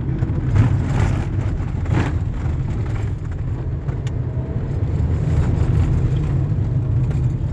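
Steady low engine and road rumble of a moving vehicle, heard from inside its cabin.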